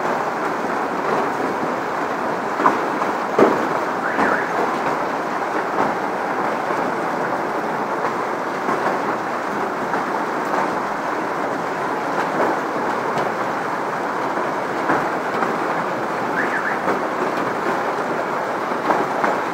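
Hailstorm: hailstones pouring down onto the street and pavement in a steady dense roar, with a few sharper knocks from single hits in the first few seconds.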